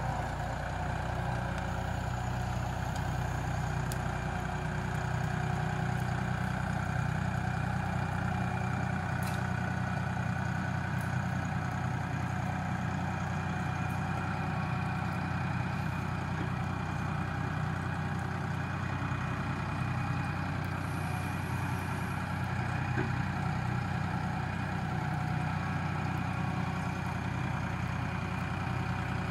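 Massey Ferguson 1840E compact tractor's diesel engine running steadily at a constant speed, with no revving or sudden changes.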